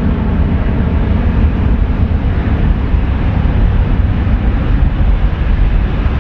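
Airbus A350-900's Rolls-Royce Trent XWB turbofan engines running as the airliner rolls along the runway: a loud, steady, deep rumble.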